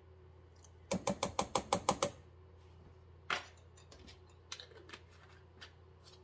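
Kitchen handling noises from a small glass bottle and a metal measuring spoon. A quick run of about nine sharp, ringing clicks lasts about a second, then comes a single louder knock and a few light taps as they are set down.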